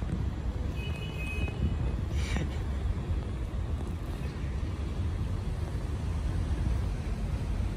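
Steady low rumble of city traffic. A short faint high squeak comes about a second in, and a brief hiss about two and a half seconds in.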